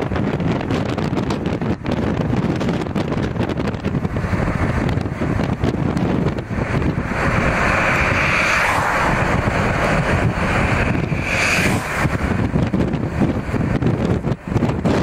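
Car driving, heard from inside: steady rumble of road and engine noise with wind rushing over the microphone. The rush swells to a louder hiss for about two seconds around the middle, and again briefly a little later.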